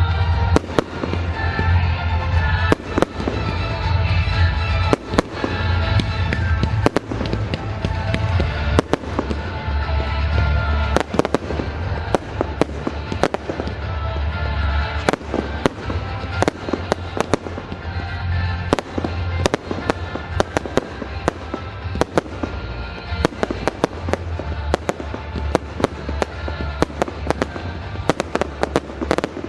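Fireworks display: a rapid string of bangs and crackles over loud music with a heavy bass line. The bangs come thicker in the second half.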